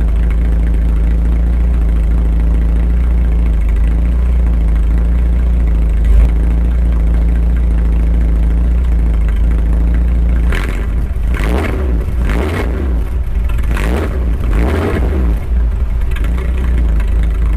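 Holden HQ Premier's engine idling steadily, then revved in several quick blips about ten seconds in, each rising and falling, before settling back to idle.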